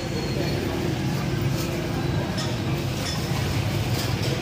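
Steady roadside street noise with a low traffic rumble, over which kebabs sizzle on a large flat iron griddle. A few light metal clinks come through, about one and a half, two and a half, and four seconds in.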